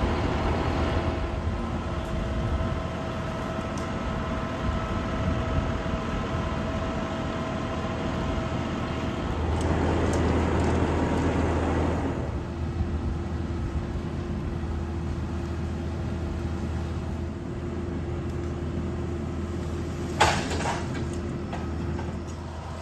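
John Deere 5065 tractor's diesel engine running steadily as it drives with a rotary cutter hitched behind, giving a deep hum with a few steady tones over it. It swells into a louder rushing noise for about two seconds around ten seconds in, and there is one sharp crack about twenty seconds in.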